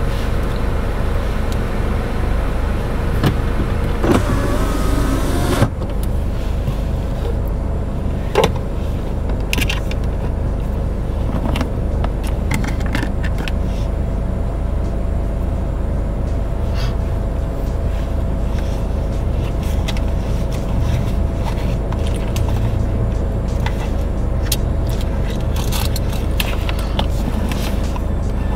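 Steady low hum inside a car's cabin with the engine idling, broken by a few small clicks and rustles of movement; a short higher sound stops about six seconds in.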